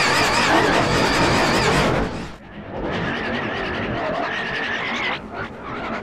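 Logo soundtrack heavily distorted by audio effects: a harsh, noisy wash with wavering high tones for about two seconds, a short dip, then a second warbling stretch that cuts off about five seconds in.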